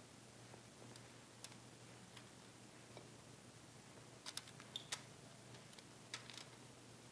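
Near silence with a faint steady low hum, broken by a few soft clicks and crinkles from aluminium foil trays and plates as slices of tomato and feta are handled and set into the foil. The clicks cluster about four to five seconds in and again just after six seconds.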